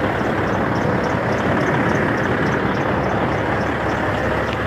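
Semi truck's diesel engine idling steadily just after a cold start, having sat for two weeks, with a faint regular ticking over the running.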